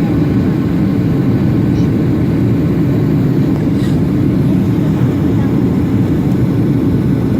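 Steady, unchanging low rumble of a Boeing 737-800 in flight: its CFM56 engines and the airflow around the airliner, holding an even level.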